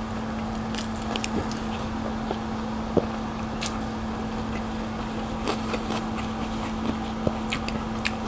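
Close-miked chewing of a mouthful of chow mein noodles and vegetables: soft, scattered wet mouth clicks and smacks over a steady low background hum.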